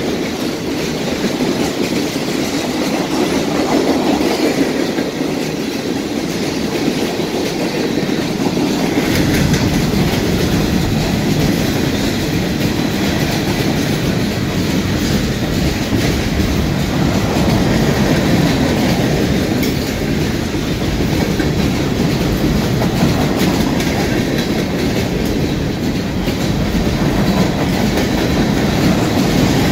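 Freight train cars rolling past, steel wheels clicking over the rail joints. A low rumble comes in about nine seconds in and carries on.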